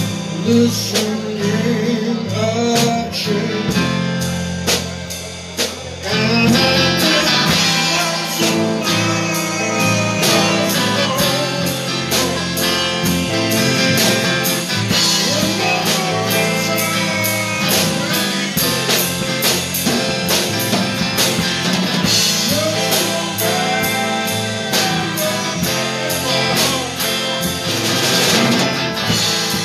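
Live blues band playing: electric and acoustic-electric guitars, electric bass and drum kit, with steady drum hits throughout. The band comes in fuller and louder about six seconds in.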